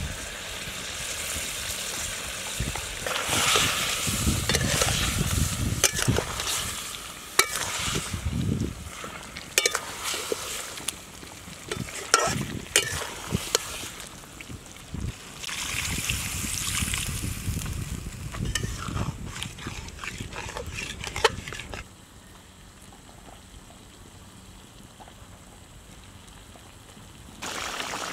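Masala chicken frying in a pan, with a spatula stirring, clinking and scraping against the pan over a steady sizzle. About 22 seconds in the stirring stops and only a quieter hiss remains.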